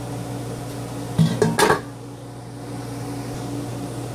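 An aluminium dome pan lid clanks against metal three times in quick succession about a second and a half in, over a steady low hum.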